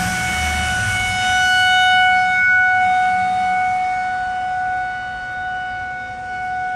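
Outdoor tornado warning siren sounding a steady wail at one held pitch, swelling about two seconds in and slowly fading.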